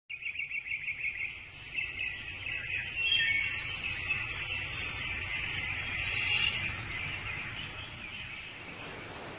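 Birds chirping over a steady, pulsing insect trill. Near the end a rushing, surf-like noise grows in.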